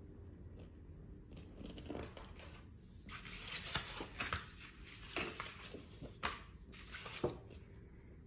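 Large sheets of photographic print paper rustling and crackling as they are lifted and turned over, with several sharper paper snaps in the second half.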